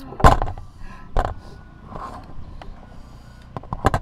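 Eating noises close to the microphone: three loud short slurping and mouth sounds, the loudest just after the start and one near the end, with quieter smacking between.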